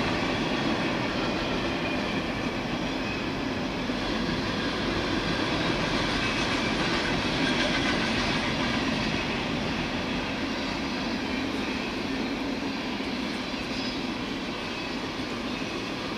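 Freight train cars rolling past with a steady rumble and rail noise, with wind buffeting the microphone.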